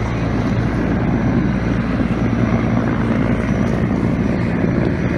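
Steady low engine drone with wind noise on the microphone, holding even throughout.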